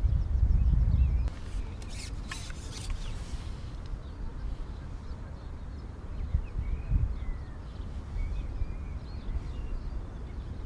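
Wind rumbling on the microphone, heavier in the first second, with faint bird calls in the distance. A few sharp clicks come about two seconds in.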